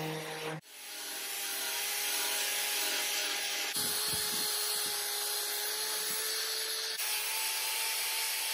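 A corded drill spinning an abrasive nylon brush wheel against a pine frame, scouring out the soft grain to give it texture: a scratchy brushing noise over a steady motor whine. For the first half second, a random orbital sander hums before cutting off sharply.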